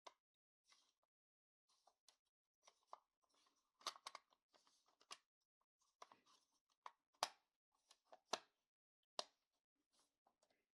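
Scattered clicks, knocks and light rustling as the parts of a Nintendo 64 power supply's plastic case are handled and fitted back together during reassembly. The sharpest clicks come in the second half.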